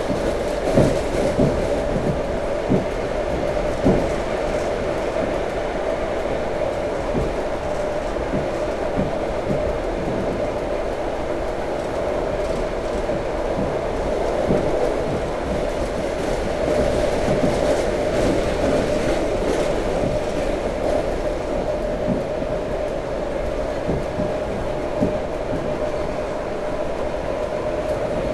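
Suburban electric train running at speed, heard from inside the carriage: a steady rumble and hum, with irregular thuds of the wheels over the rail joints, a few louder ones in the first four seconds.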